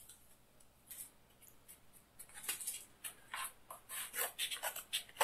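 Scissors cutting open a cardboard book mailer: a few scattered snips at first, then a quicker run of cuts with the package rustling from a little past two seconds in.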